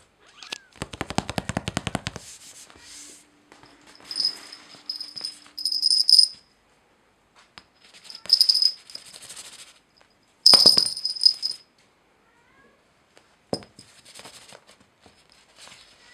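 A small plastic toy rattling in a quick run of clicks near the start, then several short, high rustling bursts and a single knock as it is knocked about on a plastic floor.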